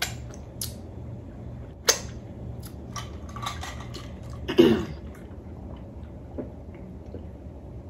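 Quiet eating sounds while working through crab legs: small mouth and table clicks, with a sharp tap about two seconds in and a louder short noise a little past halfway. A low steady hum sits underneath.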